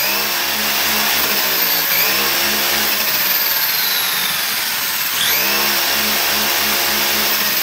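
Electric motor and geared drivetrain of an Arrma Granite RC monster truck whining at full throttle with the wheels spinning freely. The whine climbs sharply at the start, dips briefly about two seconds in, and surges up again about five seconds in as the throttle is pulsed.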